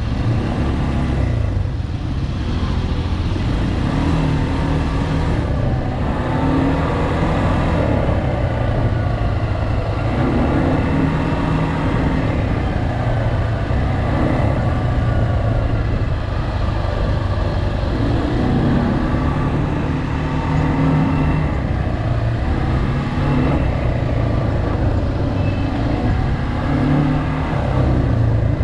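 ATV engine running under way, its revs rising and falling every few seconds as the throttle is worked.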